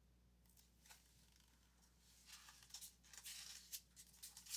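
Faint rustling and crisp flicks of a hardcover picture book's paper pages being turned, starting about two seconds in.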